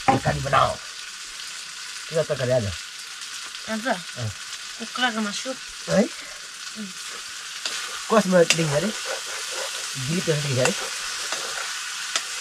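Squash root curry frying and sizzling in a pan, stirred with a spoon that scrapes the pan in short strokes every second or two.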